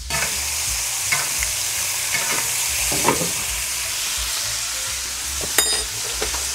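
Ribeye steaks sizzling steadily in foaming butter in a cast iron pan, with a few sharp clinks and scrapes of a metal spoon against the pan as the butter is basted over them, the loudest near the end.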